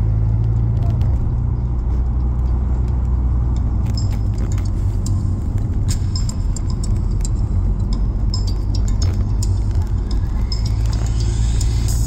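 Car driving along a road: a steady low rumble of engine and tyres, with scattered light clicks and rattles, most of them in the middle of the stretch.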